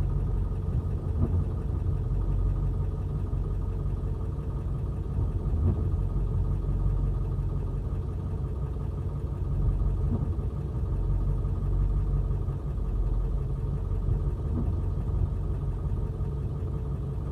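Backhoe engine running steadily, a low, even hum that holds the same speed throughout.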